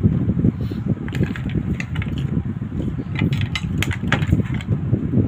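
Cooked mussel shells clicking and clattering as they are picked through and handled by hand, a quick run of sharp clicks, densest in the middle. Under them is a steady low rumble.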